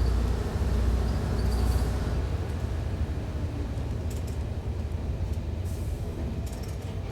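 Diesel railcar heard from the driver's cab: a steady low rumble of engine and running gear. It eases slightly after about two seconds, and a few faint clicks and rattles come later.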